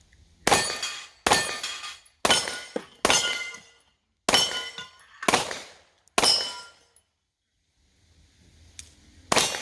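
A pistol fires eight shots at steel targets. Seven come at about one a second, then after a pause of a few seconds one more comes near the end, and each report is followed by a brief metallic ringing.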